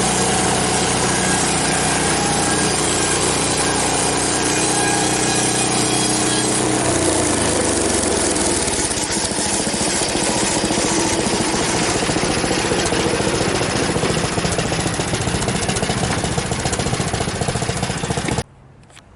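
Frontier OS23 portable bandsaw sawmill's gasoline engine running loudly, with the band blade sawing a log. The engine note drops lower about seven seconds in, and the sound cuts off abruptly just before the end.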